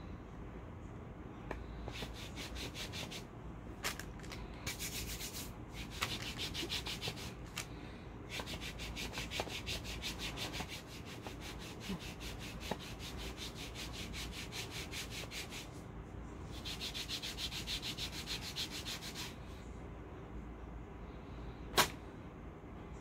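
Hand briskly rubbing a paper hair-removal strip down onto waxed skin of the leg: quick, rhythmic rubbing strokes in several spells, with short pauses between. One sharp snap near the end.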